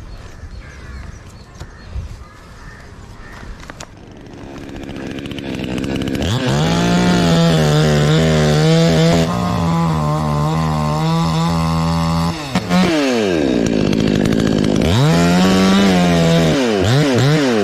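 Chainsaw engine starting with a few quieter seconds of clicks and handling noise. It then comes up to speed and holds a steady high pitch for several seconds, drops away briefly, and revs up again, rising and falling in pitch near the end.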